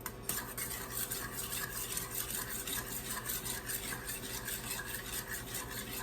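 Condensed cream of chicken soup and white wine being stirred together in a bowl: a utensil scraping round the bowl in quick, regular strokes, several a second.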